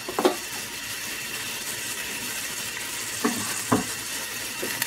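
Finely diced onion sizzling steadily in olive oil in a small stainless steel saucepan, with a few short knocks about a quarter second in, twice around three and a half seconds in, and once near the end.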